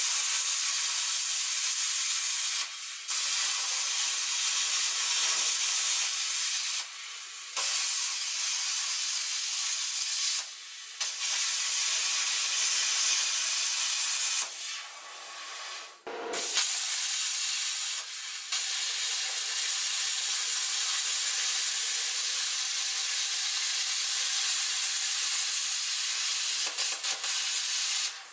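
Handheld plasma cutter cutting through the rusted sheet-steel floor of a 1964 Toyota Land Cruiser FJ40: a steady, loud hiss that stops briefly about six times and starts again.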